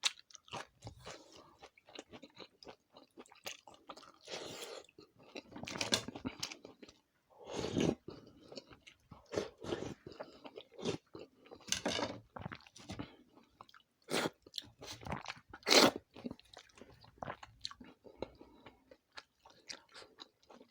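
A person eating close to the microphone: wet chewing with irregular crisp crunching bites, several louder crunches spread through, the loudest about three quarters of the way in.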